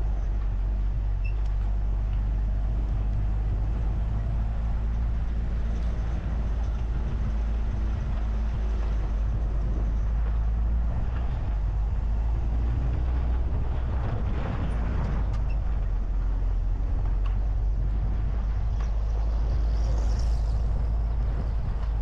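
Car driving along a dirt road: a steady low rumble of engine and tyres on the dirt, with a few knocks from bumps in the middle.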